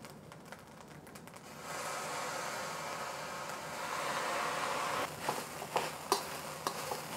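Soy sauce sizzling as it is poured onto hot fried rice in a wok, the hiss starting about a second and a half in and swelling. Near the end a metal wok spatula scrapes and knocks against the wok several times as the rice is stirred.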